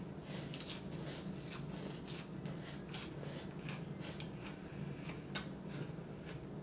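A person eating rice-noodle soup: repeated soft slurping and chewing of noodles, two or three sounds a second, with two sharp clicks of utensils against the bowl about four and five seconds in, over a low steady hum.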